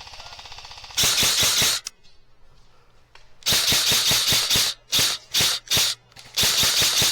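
Airsoft gun firing on full auto in loud bursts: about a second of fire a second in, then a longer burst, three quick short bursts, and a final burst near the end. Before the first burst, a fainter, steady rattle of other airsoft fire.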